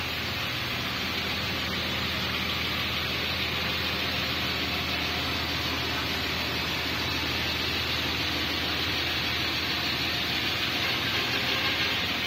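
Coach's diesel engine idling steadily, a low hum under a constant hiss, growing slightly louder toward the end.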